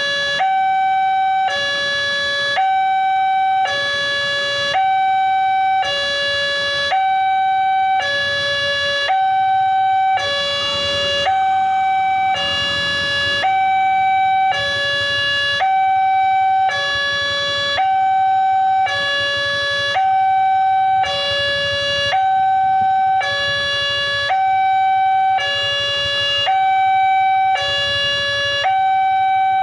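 Railway level-crossing warning alarm sounding from the loudspeaker on the crossing signal post: an electronic two-tone signal swapping between a higher and a lower note about every two-thirds of a second, steady and unbroken, warning that a train is approaching while the barrier is down.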